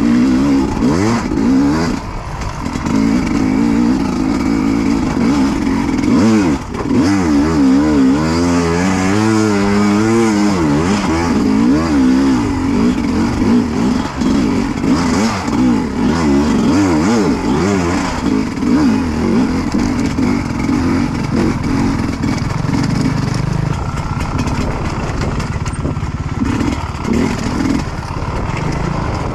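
Dirt bike engine, close up, revving up and down over and over as it is ridden through rough terrain, with quick blips about a third of the way in. For the last several seconds it runs lower and steadier.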